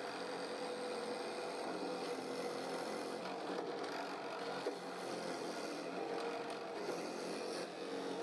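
Drill press running steadily with a 10 mm bit boring a hole into a wooden strip: a motor hum under the cutting noise of the bit in the wood.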